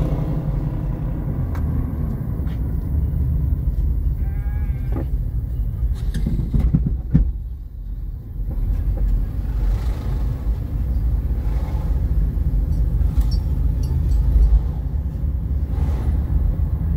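Steady low rumble of a car's engine and tyres heard from inside the cabin while driving. A short wavering call comes through about four seconds in, and the rumble eases briefly around the middle.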